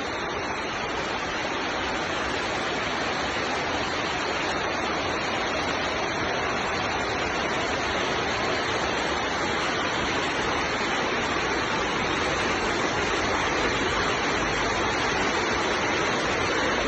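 Heavy rain pouring down steadily, slowly growing a little louder.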